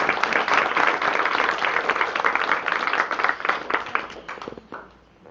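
Audience applauding with dense, rapid clapping that thins out and dies away about four and a half seconds in.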